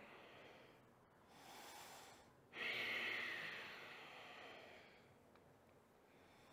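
A woman breathing deeply while holding a yoga pose: a soft breath about a second in, then a stronger breath that starts suddenly and fades away over about two seconds.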